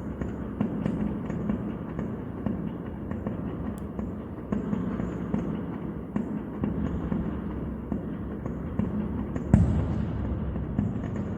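Aerial fireworks going off in quick succession, a continuous rattle of pops and crackles with deep rumbling bursts. One much louder boom comes near the end.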